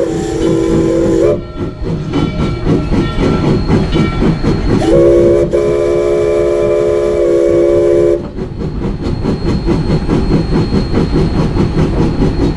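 Chime steam whistle of Rio Grande Southern No. 20, a 4-6-0 steam locomotive, sounding several notes at once in two blasts for a grade crossing: one blast ends about a second in, and a longer one of about three seconds follows a few seconds later. Between and after the blasts the locomotive's rhythmic running noise is heard.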